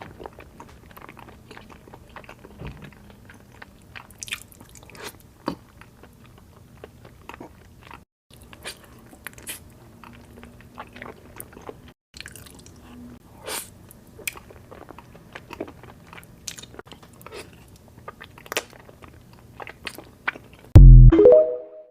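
Close-miked eating: crisp crunching bites and chewing, a scattering of short crackles and mouth clicks. Near the end a sudden loud low boom lasts about a second.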